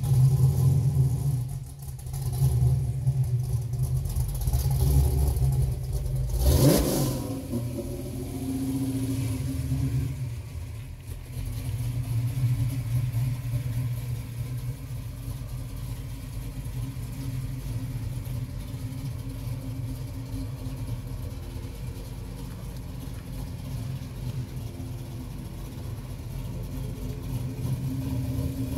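Butler Performance 505 cubic-inch Pontiac V8 running with a heavy low rumble, revved sharply once about seven seconds in, then running steadily as the car rolls out at low speed.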